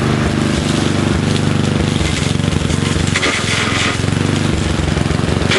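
Small lawnmower engine running hard at full throttle with a fast, even firing rattle, the modified mower's blade spinning. A little past three seconds in a harsher, hissier stretch comes in, like the blade chewing through brush.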